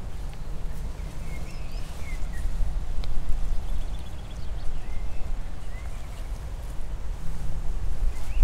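Wind rumbling on the microphone, with faint bird chirps now and then.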